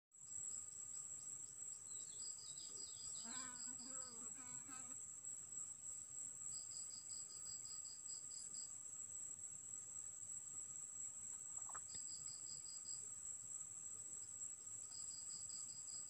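Steady high-pitched insect drone, with short trains of rapid chirping pulses repeating every few seconds. A brief wavering call sounds about three seconds in.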